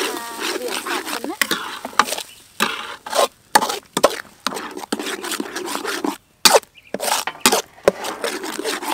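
Metal spoon stirring thick chili paste in a metal wok, scraping through the paste and clinking against the pan's sides in irregular strokes as sugar is mixed in.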